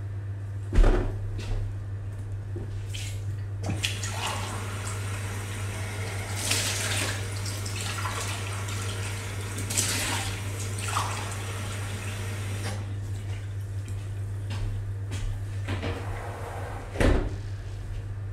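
A tap running into a sink for about nine seconds, starting about four seconds in. There is a thump about a second in and another near the end, over a steady low hum.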